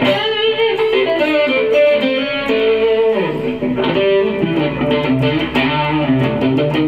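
Electric guitar played through Line 6 POD Farm's Screamer overdrive (its model of the Ibanez Tube Screamer) with delay and reverb, set for a lightly overdriven blues tone: single-note lead lines with bent notes.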